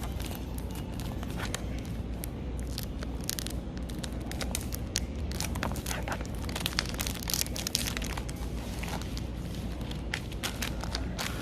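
Paper and plastic packaging crinkling and rustling as it is handled and opened, with irregular sharp crackles, busiest in the middle.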